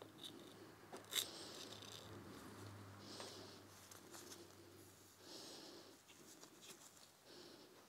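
Faint handling noises of gloved hands working a small metal engine part, with scattered soft rustles and a sharp click about a second in.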